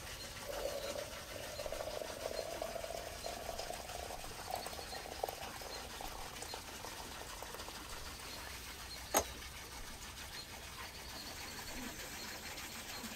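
Water running from a brass samovar's tap into a glass teapot, its filling note rising slowly as the pot fills. A single sharp click about nine seconds in.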